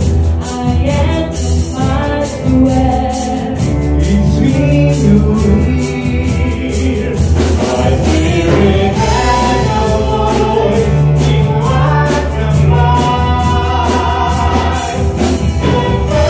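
A woman sings a melody into a microphone over electric keyboards, with sustained low bass notes and a steady, evenly spaced high ticking beat.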